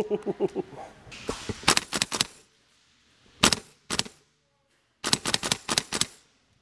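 Airsoft gunfire from a KWA LM4 gas blowback rifle: sharp cracks in quick strings, about five shots together nearly two seconds in, two single shots, then a rapid run of about eight shots near the end.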